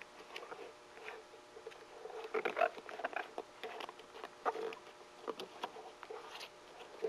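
Rubberized roofing underlayment being handled and pressed onto a skylight frame: irregular crinkling and rustling with scattered small clicks, a little louder about two and a half seconds in.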